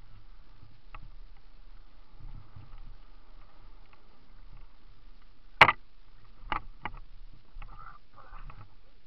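Mountain bike rolling down a rough forest trail: a steady low tyre rumble with light rattling. A single sharp clunk comes a little past halfway, followed by two smaller knocks.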